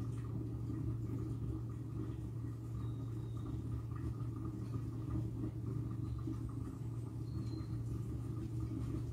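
Steady low hum with a faint rumble, unchanging throughout, like a running kitchen appliance.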